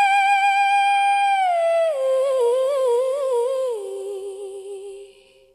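Unaccompanied solo voice singing a wordless, high held note. About two seconds in, it turns into a wavering, ornamented run that steps down twice and fades out near the end.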